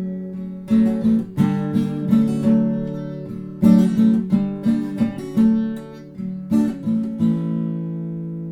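Background music: acoustic guitar strumming chords in an instrumental break of a song, with the last chord ringing out and fading near the end.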